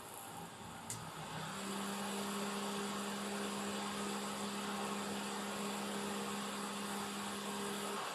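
Small USB table fan running with a steady motor hum and air whir. A switch clicks about a second in, then the hum rises in pitch and the fan grows louder as it goes to a faster speed.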